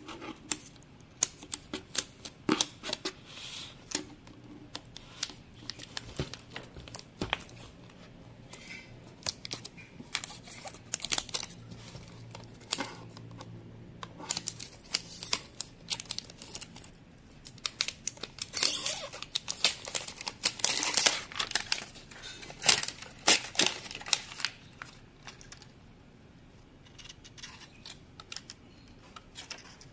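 Clear plastic shrink wrap being peeled and torn by hand off the lid of a plastic protein-powder tub: irregular crinkling and crackling. It is busiest about two-thirds of the way through, then thins to a few faint crinkles near the end.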